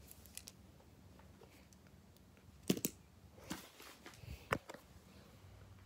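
A few short, sharp taps and light rustles of handling over quiet room tone, the loudest about two and a half seconds in and again near four and a half seconds.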